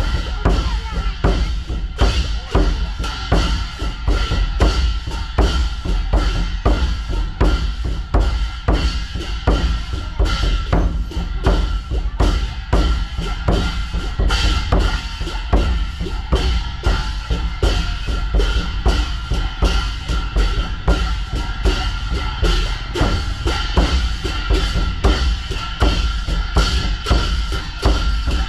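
Buddhist temple drum beaten in a steady, fast rhythm of about three strokes a second for the holy-day drumming, with steady ringing tones underneath.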